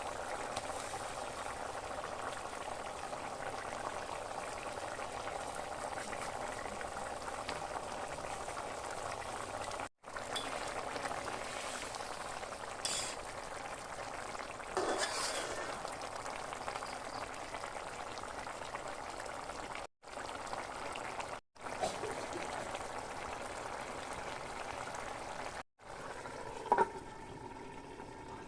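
A bottle gourd and fish curry bubbling and sizzling in a pan, stirred now and then with a spoon. There is a sharp clink near the end.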